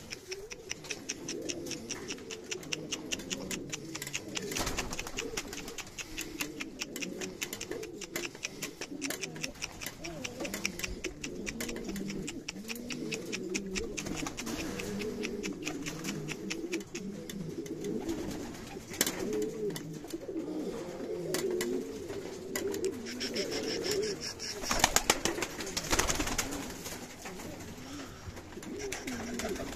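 Several buchón valenciano (Valencian pouter) pigeons cooing continuously and overlapping, with a few brief louder flurries about two-thirds of the way through and again near the end, likely wing flaps.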